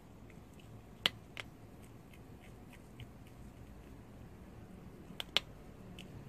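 Prairie dog gnawing a dry green pellet treat: a run of small crisp crunches, with two louder cracks about a second in and two more just after five seconds.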